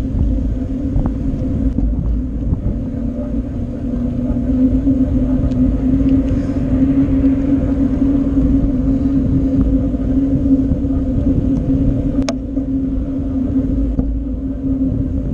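Mountain bike rolling along: steady rumble and hum of the tyres on the road, with wind buffeting the action camera. A single sharp click, likely a bump or rattle of the bike, about twelve seconds in.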